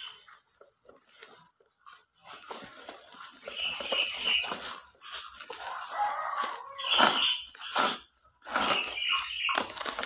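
White plastic parcel wrapping being cut and torn open with a knife, crinkling and tearing in irregular bursts.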